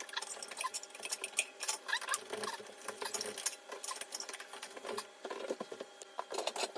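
Irregular small clicks, rattles and scrapes of ceiling fan mounting parts being handled and fitted back together.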